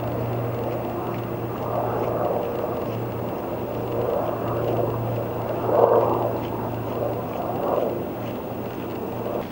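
Steady low engine drone, with louder swells of noise rising over it a few times and peaking about six seconds in.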